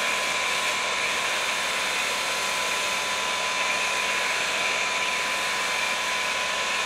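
Pressure washer running and spraying soap through a foam cannon fitted with a 1.1 mm orifice: a steady hiss of spray with a thin high whine over it.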